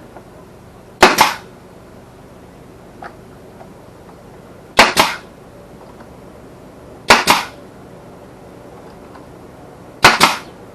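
Pneumatic brad nailer firing four times, a few seconds apart, driving brad nails into wood: each shot is a sharp snap followed by a short hiss of exhaust air.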